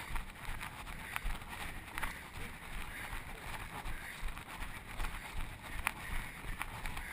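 Footfalls of a runner thudding through a chest-mounted camera in a rhythmic jostle, with a few sharp clicks and some rubbing noise.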